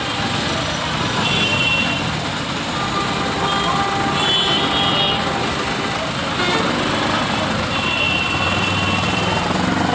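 Busy road traffic noise, steady and dense, with a few brief high-pitched tones cutting through it.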